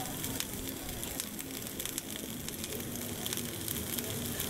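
Steady hiss with many small crackles from the firebox and boiler of a 1924 Foden C-type steam wagon in steam, its coal fire burning.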